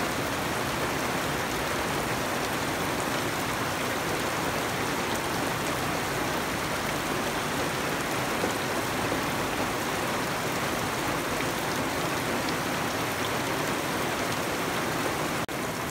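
Steady rain falling on garden foliage and wet ground, an even hiss of many drops. The sound briefly drops out just before the end.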